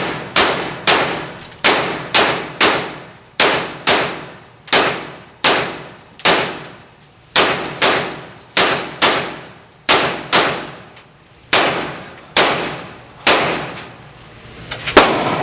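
Semi-automatic 9mm gunfire: about twenty single shots in steady succession, half a second to a second apart, each with a ringing tail.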